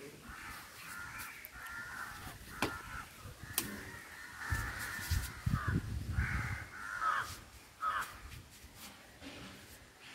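Crows cawing again and again in harsh, rasping calls, with a couple of sharp clicks and a low rumble about halfway through.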